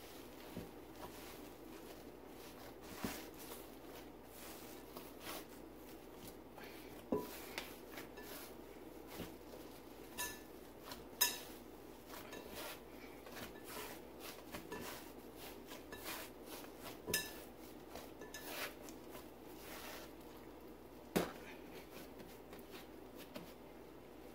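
Faint scattered clicks and light knocks on a glass mixing bowl as risen whole wheat dough is punched down, gathered and turned out by hand. A handful of sharper clinks stand out, some with a brief ring.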